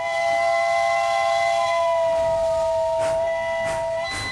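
Steam locomotive whistle giving one long blast of several tones sounding together, dipping slightly in pitch partway through and cutting off near the end. A couple of steam exhaust chuffs come in just before it stops.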